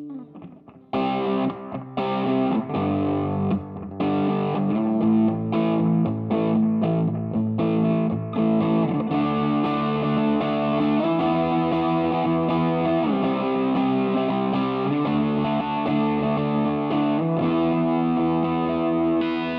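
Electric guitar played through a Mooer Green Mile overdrive pedal, a Tube Screamer TS-9 clone, set to its Hot mode. A held note dies away, and after a short pause the playing starts again about a second in with short choppy strokes, then moves into sustained overdriven chords from about halfway through.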